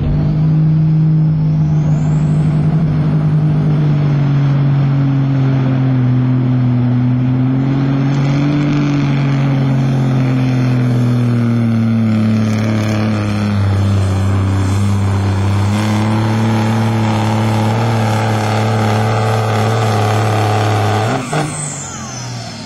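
Diesel engine of a super street class semi tractor running at full throttle under heavy load as it drags a pulling sled. It holds a loud, steady drone that sags slightly in pitch, then drops away sharply about 21 seconds in.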